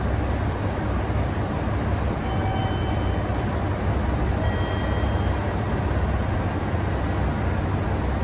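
JR Shikoku 2700 series diesel multiple unit idling at the platform: a steady low diesel rumble. A few faint, brief high tones sound over it a couple of seconds in.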